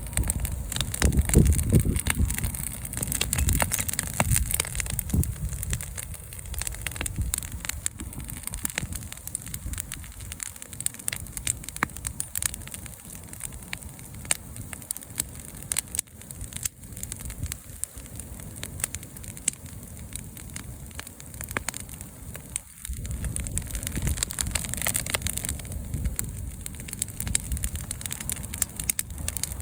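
Wood bonfire burning, crackling and popping with many small sharp snaps. A low rumble rises in the first few seconds.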